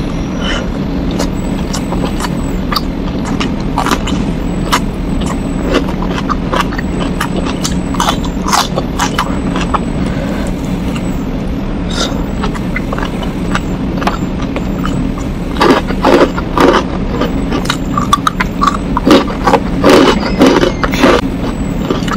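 Close-up mouth sounds of a person eating with their fingers: chewing, smacking and small wet clicks over a steady low hum. In the last third come a run of louder, sharper bites and chews.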